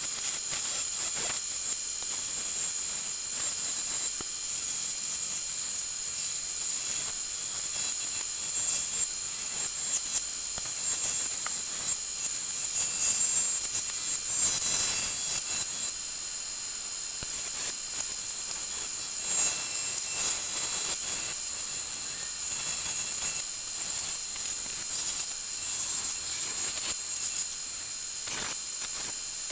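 Steady high-pitched hiss with a constant thin tone in it, and a few faint taps scattered through.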